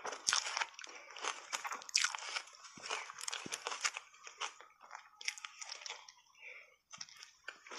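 Refrozen block ice coated in matcha powder being bitten and crunched between the teeth, close to the microphone: dense, fast crackling crunches, loudest in the first two seconds and thinning out after about four seconds.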